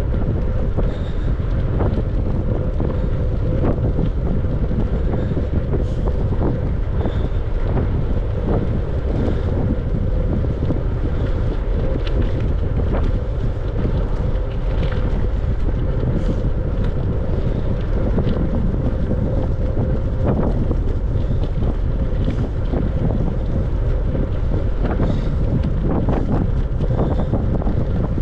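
Wind buffeting the microphone of a camera carried on a moving bicycle, a steady loud rumble, with faint ticks and rattles scattered through.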